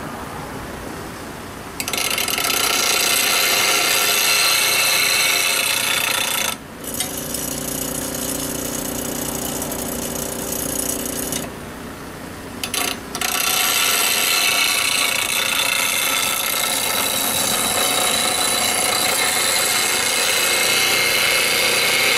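Rikon slow-speed bench grinder (1725 rpm, half horsepower) running with a steady hum while the wing of a bowl gouge, held in a sharpening jig, is ground against the wheel, giving a bright hissing grind. The grinding is loudest for about five seconds starting two seconds in and again for the last nine seconds, with lighter contact between and only the motor hum around the start and about twelve seconds in.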